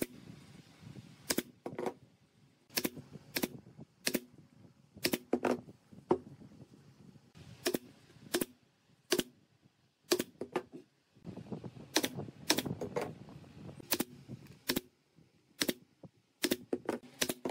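Pneumatic nail gun firing fasteners through a rubber tyre tread strip into a wooden wheel rim: about twenty sharp shots, irregularly spaced and sometimes in quick pairs, with handling noise between them.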